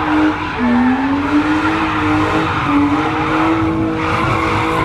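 BMW E36 coupe doing a burnout: the engine is held at high revs and the rear tyres screech as they spin. The revs dip briefly about half a second in, then climb back and hold.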